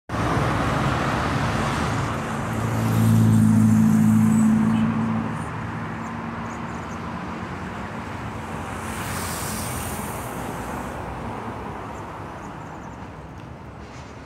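Street traffic noise. A passing vehicle's engine hums loudest about three to five seconds in, a brief hiss follows around nine seconds in, and the traffic then slowly fades.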